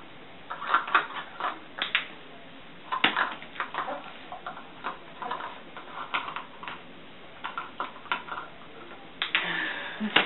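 Small plastic cups knocking and clattering on a bed as a rabbit noses and pushes at them while the cups are handled: an irregular run of light clicks and knocks.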